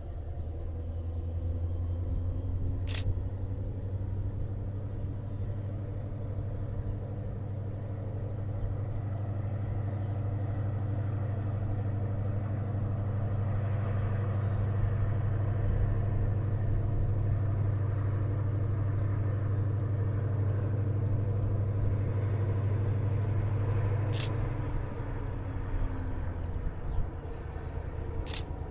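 Diesel locomotive engine running steadily in the distance with a low, even hum, growing louder toward the middle and easing off near the end. Three sharp clicks cut through it.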